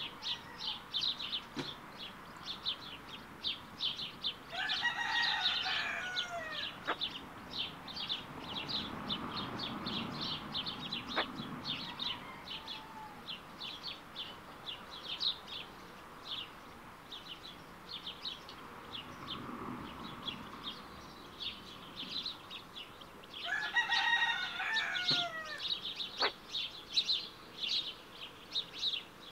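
Smew ducklings peeping continuously, several short, high, thin peeps a second. Another bird gives two longer, drawn-out calls, one about five seconds in and one about five seconds before the end, and these are the loudest sounds.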